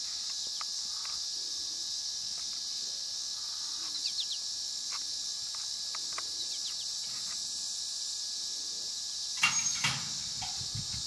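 Crickets chirring steadily, with a few faint clicks. Near the end, a loud clatter of metal as the roping chute's gate is thrown open to release the calf, then hoofbeats on the dirt begin.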